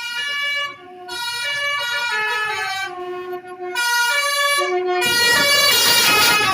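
Multi-tone telolet horn playing a tune: a run of held notes stepping up and down in pitch. About five seconds in, a loud rushing noise joins under the notes and runs on with them.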